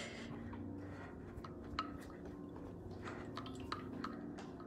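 Faint, irregular taps and clicks from someone walking down a tiled hallway with a handheld phone, over a low steady hum.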